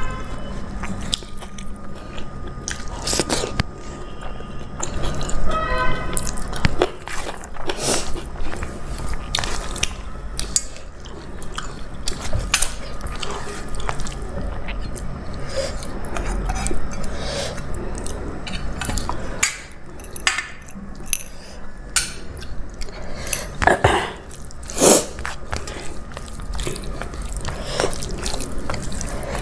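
A person eating close to the microphone: chewing and biting, with small crunches and wet clicks of mouthfuls of rice, dal and vegetable curry.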